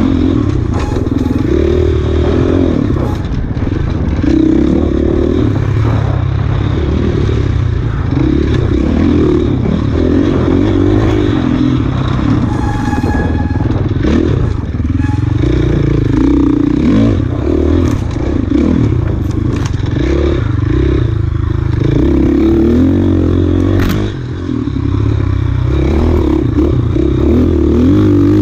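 Off-road motorcycle engine ridden hard, its revs rising and falling continuously, with a few sharp knocks along the way.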